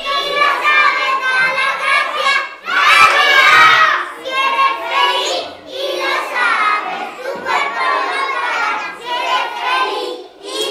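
A group of children shouting and cheering together, many high voices overlapping, with a loudest shout about three seconds in.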